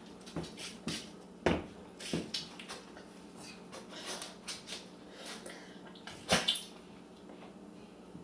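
Scattered small clicks and knocks at an irregular pace, with two louder knocks about a second and a half in and about six seconds in.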